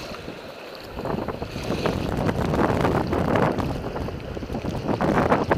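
Gusty storm wind buffeting the microphone in a downpour, growing louder about a second in.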